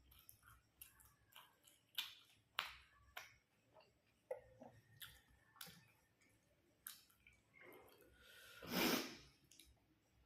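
Close-up chewing of food: a string of small crunches and wet mouth clicks, with a louder rushing noise lasting about a second near the end.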